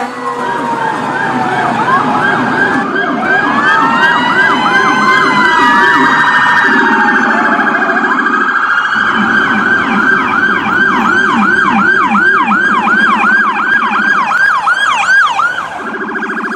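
Electronic emergency sirens sounding loudly, several tones layered together: a fast yelp sweeping up and down about three times a second over slower rising-and-falling wails.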